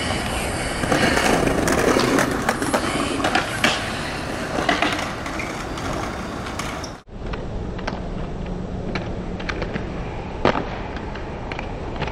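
Hard skate wheels rolling over a concrete skatepark, a continuous rough rumble broken by sharp clacks and knocks. About seven seconds in the sound cuts off abruptly and goes on quieter, with one loud knock near the end.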